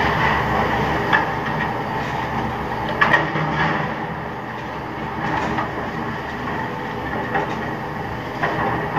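Demolition excavator working a pile of concrete rubble: a steady engine and clanking noise, with sharp knocks of breaking and shifting debris about a second in, twice around three seconds in, and again near the end.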